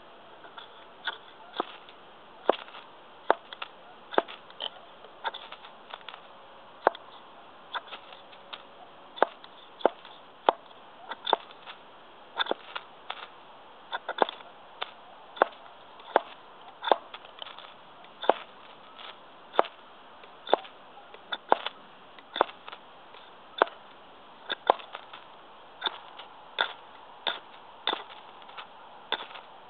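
Repeated quick, sharp scrapes of a ferrocerium rod struck against the head of a Prandi Yankee small axe, about one to two strikes a second, throwing sparks to light wood shavings.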